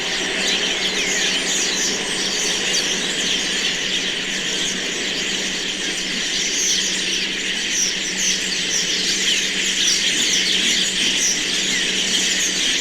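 A large roosting flock of common starlings whistling and chattering in a dense, continuous mass of calls, over the steady rumble of city traffic.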